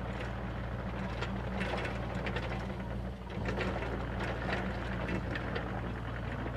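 Rented excavator's diesel engine running steadily, with irregular clicks and scrapes over it.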